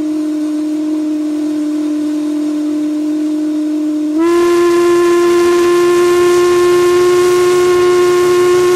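Steam whistle blowing a long, steady note with a hiss of steam. About four seconds in it steps up louder and slightly higher in pitch, with a fuller, brighter tone.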